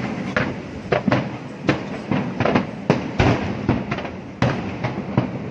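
Aerial fireworks bursting in a rapid, irregular string of bangs, about a dozen in a few seconds, over a steady rumble from the display.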